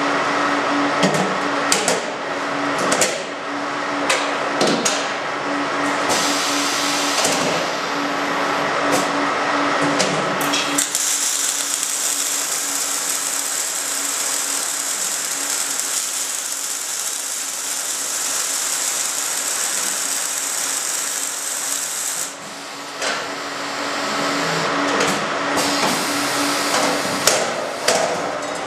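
Steel beams clanking and knocking as they are set into an automated beam welding machine, over a steady machine hum. About eleven seconds in, the machine's wire-fed arc welding torches strike and weld with a steady hiss for about eleven seconds, then stop, and the clanking of handling the steel resumes.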